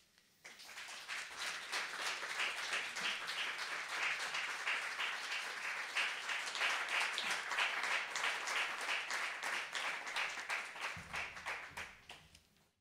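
Audience applause: many people clapping, building up within the first couple of seconds, holding steady, then fading out and stopping just before the end.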